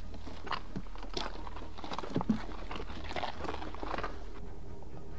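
Footsteps crunching irregularly on dry grass and stony ground, loudest just after two seconds in.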